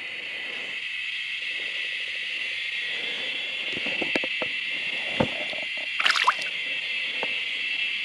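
A steady, high-pitched insect chorus, with a few short clicks and knocks between about four and six and a half seconds in.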